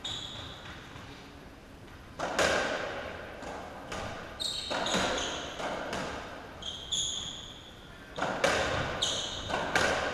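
A racketball rally: the ball cracks off the racket and the walls several times, the loudest hit about two seconds in, each hit ringing in the enclosed court. Short high squeaks run between the hits, from shoes on the court floor.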